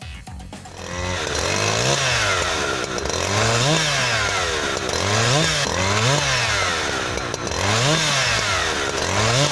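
Husqvarna 365 two-stroke chainsaw running hard, its engine pitch repeatedly rising and falling as the throttle is opened and eased, about every one to two seconds.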